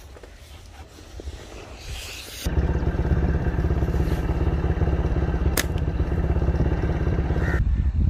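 An engine running steadily with rapid, even firing pulses, starting abruptly about two and a half seconds in and cutting off abruptly shortly before the end, with one sharp click in the middle.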